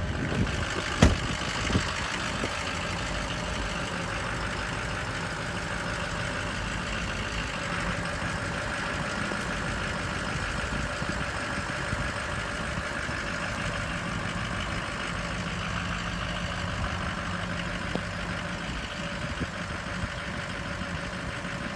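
Ford F550 bucket truck's engine idling steadily with the PTO engaged to run the Altec boom's hydraulics. A single sharp knock about a second in.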